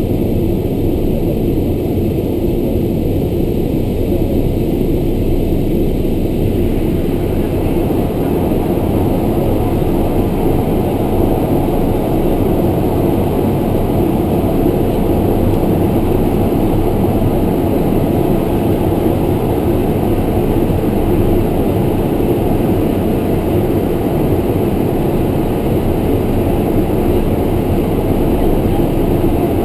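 Twin turboprop engines and propellers of a Beechcraft King Air, a loud, steady drone heard from inside the cockpit. About six or seven seconds in, the sound turns a little brighter and fuller.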